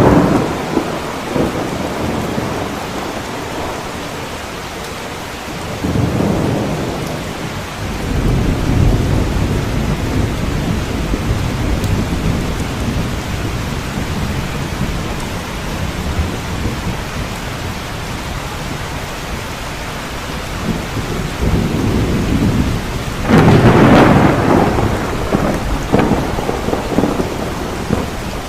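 Steady heavy rain with rolling thunder: a rumble swells about six seconds in, and a louder clap with a long rumble comes near the end.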